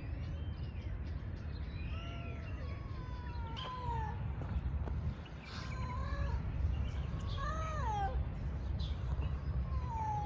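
Female stray cat meowing repeatedly, with several drawn-out meows that rise and fall in pitch, the longest about two seconds in.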